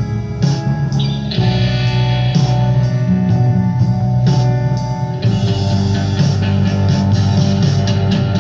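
Music played back from a cassette tape on a restored Gradiente S96 stereo cassette deck.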